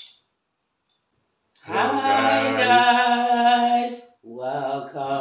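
A man and a woman singing a drawn-out greeting together in held notes, beginning after a short silence; the voices break off briefly and start again near the end.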